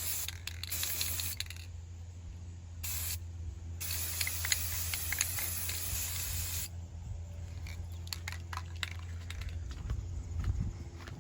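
Aerosol spray-paint can spraying model-kit parts in hissing bursts: a few short squirts, then one longer spray of about three seconds that stops well before the end. Faint clicks follow.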